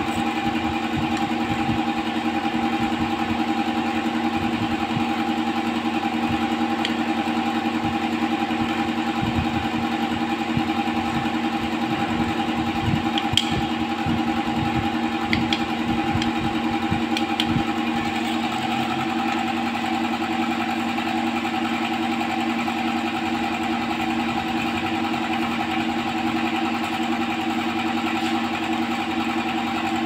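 Steady drone of machinery running, unchanging throughout, with a few small clicks and taps in the middle as the plastic connector and its screws are handled.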